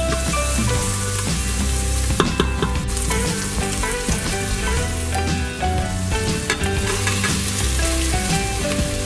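Chopped onion sizzling in hot olive oil in an Instant Pot's stainless steel inner pot on sauté, stirred with a silicone spatula, with a few sharp clicks of the spatula on the pot about two seconds in. Background music plays underneath.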